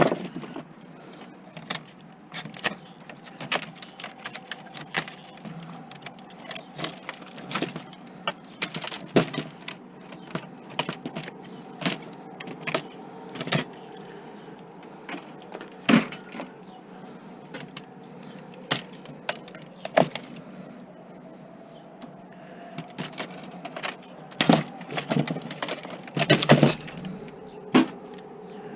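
Irregular clicks, knocks and clatter of plastic and metal parts being handled and pulled apart while an electronic unit is dismantled for scrap, over a faint steady hum. A cluster of louder knocks comes near the end.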